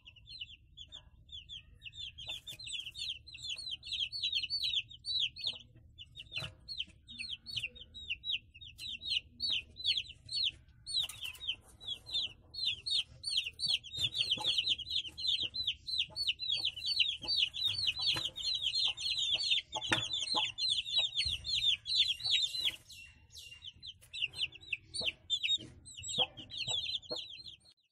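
A brood of Nattu kozhi (Indian country chicken) chicks peeping: short, high cheeps in quick succession, many overlapping, with a brief lull about 23 seconds in.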